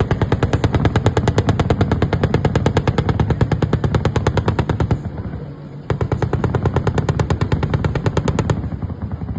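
Automatic gunfire in two long bursts of about ten shots a second: the first lasts about five seconds, and after a short pause a second burst runs for a couple of seconds more.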